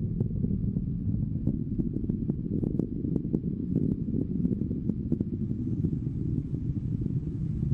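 Rocket engine during ascent: a steady low rumble with faint scattered crackles.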